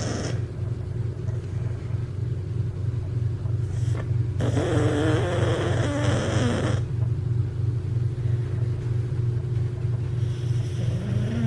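Cocker spaniel snoring: a steady low rumble throughout, with a louder, wavering higher-pitched snore from about four and a half to seven seconds in.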